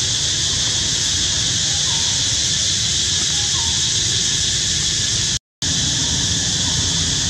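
Steady outdoor drone, high and dense like an insect chorus, over a low rumble, with a few faint short chirps; it cuts out completely for a moment about five seconds in.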